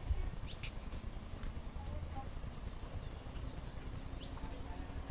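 Natural ambience: a bird chirping, short high notes repeating about twice a second, over a low steady rumble.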